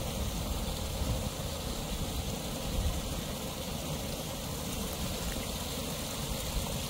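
Steady rush of water in a small creek, churning where it pours into the pool.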